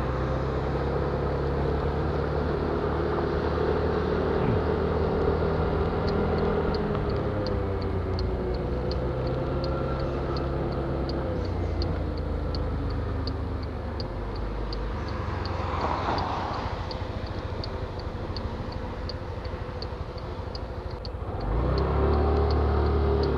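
Car running with engine and road noise, heard from inside. A steady turn-signal ticking, about two to three ticks a second, starts about six seconds in, and the engine grows louder near the end as the car pulls away.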